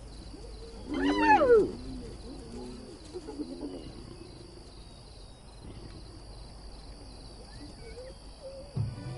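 Spotted hyenas calling at a kill as lions move in to take it: one loud rising-and-falling cry about a second in, then fainter, lower calls that die away.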